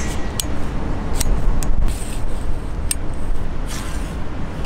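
A metal telescopic tarp pole being pulled out, its sections sliding with a few sharp clicks and scrapes, over a steady low rumble.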